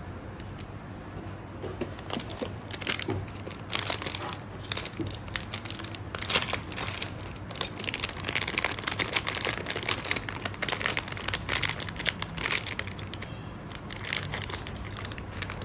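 Plastic packaging crinkling as small parts are handled and unwrapped, in dense irregular crackles that start a second or two in and thin out near the end.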